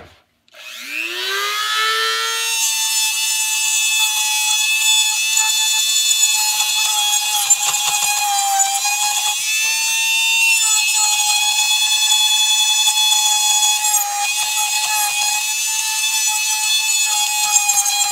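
Handheld electric rotary tool fitted with a new ball-shaped carving bit, spinning up with a rising whine about half a second in, then running at a steady high-pitched whine as it cuts into a wooden rifle stock. The pitch wavers slightly in the middle.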